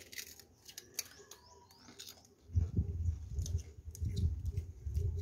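Small clicks and ticks of a tap's plastic valve cartridge parts being handled and fitted together by hand. From about halfway, low, irregular rubbing and bumping handling noises take over.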